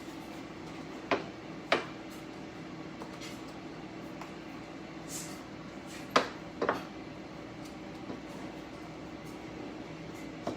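Air fryer running with a steady hum, cooking turkey bacon. Over it come sharp knocks of a utensil on the skillet: two about a second in and three more around six seconds in.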